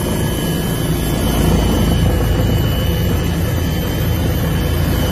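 Helicopter heard from inside the cockpit in flight: engine and rotor running with a steady low noise and a thin, steady high whine over it.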